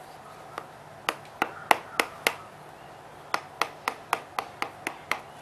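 Wood carving: a tool struck into a piece of wood in sharp taps. There are five spaced strokes, then a quicker run at about four a second, as the wood is cut against the grain.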